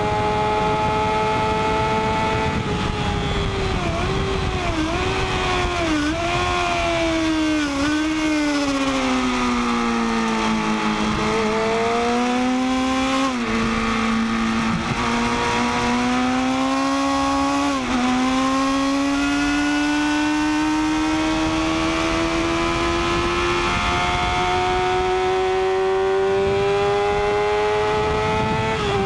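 Sport motorcycle engine heard onboard at racing pace. It drops in pitch under braking, with several quick throttle blips on the downshifts, then pulls hard through the gears, its pitch stepping down at upshifts about 13 and 18 seconds in and rising steadily near the end. Wind rushes over the microphone underneath.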